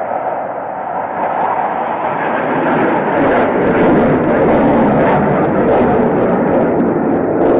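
Aircraft flying past: a loud rushing engine noise that swells over the first few seconds and holds near its peak through the second half, with crackle in it.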